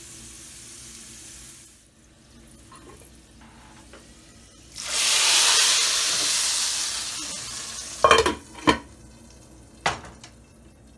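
Sliced garlic and whole dried red chillies frying gently in oil, then the hot tempering oil poured onto the cooked daal: a loud sizzle that dies away over two or three seconds. Three sharp metal clanks follow as the steel lid goes on the pot.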